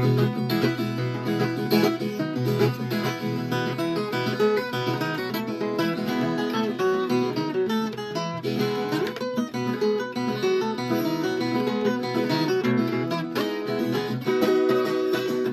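Viola caipira, the Brazilian ten-string folk guitar, played solo with quick plucked runs and strummed chords in an instrumental passage between sung verses.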